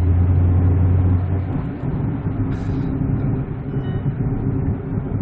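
Inside the cabin of a 2013 Kia Ray light car under way, its LPG-fuelled three-cylinder engine and tyres making a steady drone. A deeper hum is strongest for the first second and a half, then eases.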